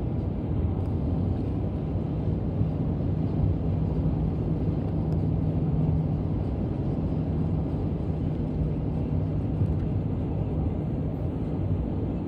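Distant C-17 military transport jet passing overhead, its engines a low, steady rumble.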